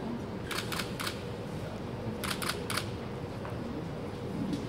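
Camera shutters clicking in two quick runs of three, the second run about a second and a half after the first, over a low room murmur.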